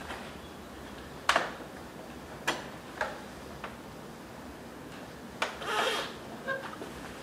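Sharp clicks and knocks of hands and a tool working on a stage piano's panel: about five separate strikes, the first the loudest, with a short rustling scrape near the end.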